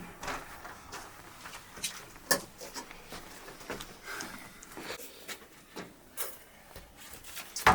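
Irregular light clicks and knocks, as of things being handled, with one sharper knock near the end.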